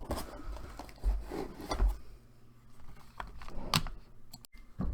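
Handling noise of small items and packaging: scattered light taps and clicks, a sharper click near the end, and a couple of low bumps, with the sound cutting out for an instant just before the end.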